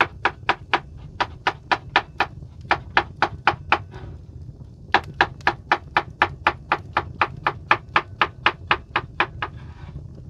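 Knife chopping salad vegetables on a cutting board: quick, even strokes at about four a second, in runs broken by short pauses, the longest about four seconds in.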